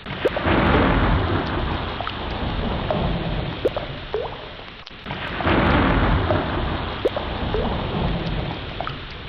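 Heavy rain with rolling thunder. The storm swells loud twice, with a brief dip near the middle.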